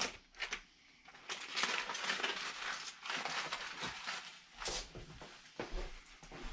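Irregular crinkling and rustling from handling a freshly smoked pork butt.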